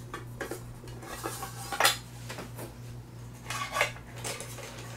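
Metal camping cookware being handled: pans with a folding handle knocking and clinking together as the nested set is taken apart. There are a few separate clanks, the sharpest about two seconds in and a small cluster near four seconds.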